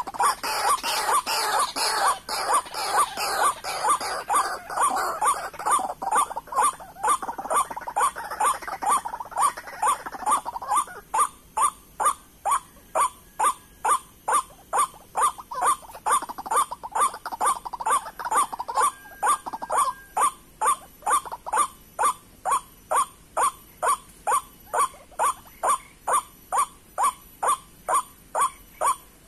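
White-breasted waterhens calling: a monotonous series of "kwak" calls, about two a second. For the first ten seconds several calls overlap in a dense chorus, then a single steady series carries on.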